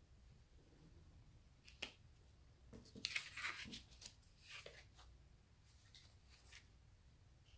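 Faint rustles and light taps of paper tags being handled and laid down on a wooden tabletop, with the loudest rustling about three seconds in.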